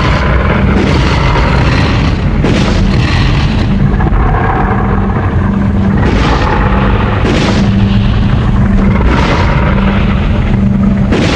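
Golza kaiju sound effect: a loud, continuous rumbling blast of noise over a steady low hum. It swells with hissing surges about every one to two seconds.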